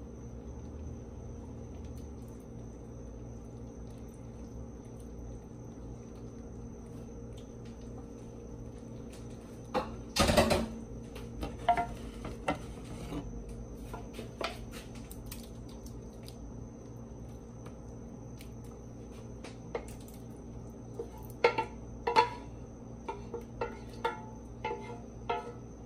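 A spatula and a plastic measuring cup scrape and knock against a nonstick pan and baking dishes as thick pot pie filling is scooped and spread. There is a loud scrape about ten seconds in, a few clinks after it, and a run of taps and clinks near the end, over a steady low hum.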